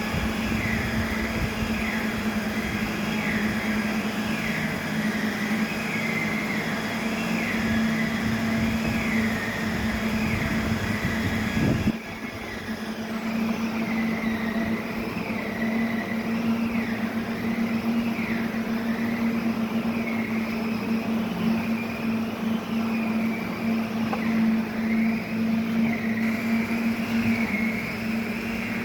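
Steady machine hum with a high tone that rises and falls about once a second throughout, broken by an abrupt change about twelve seconds in.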